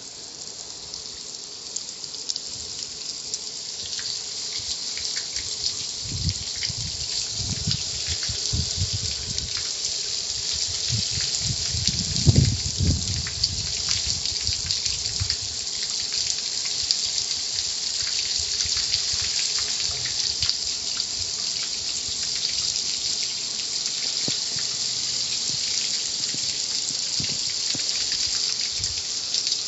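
Water spraying steadily at a car wash, a hiss that builds over the first few seconds. Low rumbling thumps come and go between about six and fourteen seconds in, loudest around twelve seconds.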